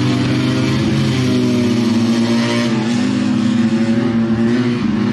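Two-cylinder Fiat 500 race car engines running hard, revving through a bend and accelerating, their pitch wavering and rising.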